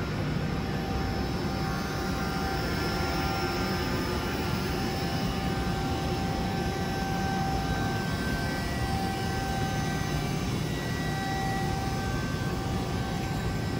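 Steady drone of running industrial machinery, with faint whining tones that come and go.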